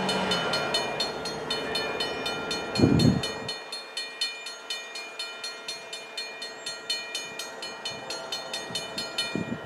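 Grade-crossing warning bell ringing in a steady run of quick strikes while the crossing gates come down, over a steady hum. One loud low thud about three seconds in.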